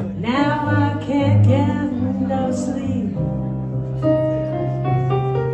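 Live jazz-blues duo: a female singer sings a phrase over electric keyboard, her voice dropping out about three seconds in. The keyboard carries on alone with held chords, new notes coming in about a second later.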